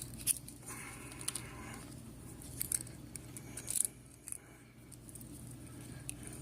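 Small metallic clicks and rattles of a key and lock cylinder being handled, with a few sharp ticks spread through and a short scraping rustle about a second in.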